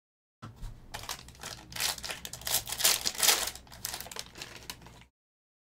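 Foil wrapper of a football trading-card pack crinkling and crackling as it is torn open and handled. It starts about half a second in, is loudest in the middle, and cuts off suddenly near the end.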